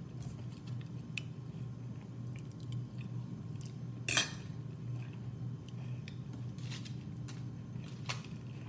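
Scattered small clicks and clinks of cutlery and dishes while eating, with one louder clatter about four seconds in, over a low steady hum.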